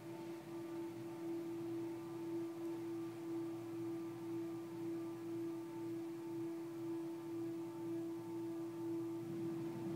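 Automatic car wash machinery giving a steady, even hum over a faint low rumble, heard from inside the car's cabin while foam covers the windscreen.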